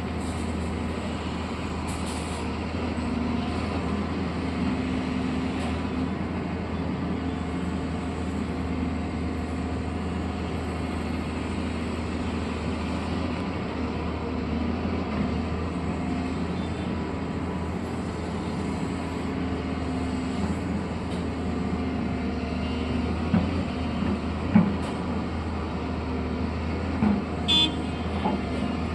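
Heavy construction machinery's diesel engine running steadily with a low drone, and a few short knocks and clanks near the end.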